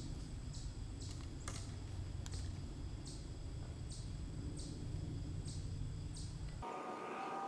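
Insects chirping in a regular rhythm, a little more than once a second, over a steady low rumble. Near the end the rumble cuts out and a different sound with a few steady tones takes over briefly.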